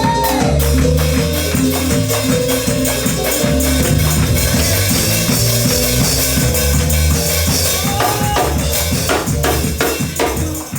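Upbeat gospel band music: drum kit and tambourine keeping a fast beat over a moving bass line.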